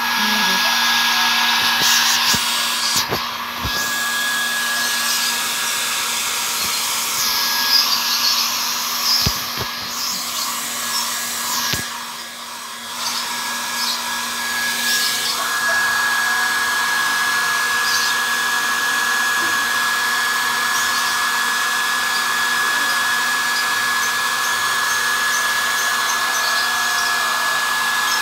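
Hair dryer blowing steadily, with a constant whine over its airflow noise. It eases briefly about twelve seconds in and then carries on at full level.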